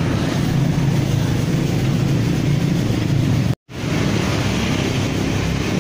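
Steady low engine rumble of a motor vehicle running close by on the street. It is cut by a split-second dropout about three and a half seconds in.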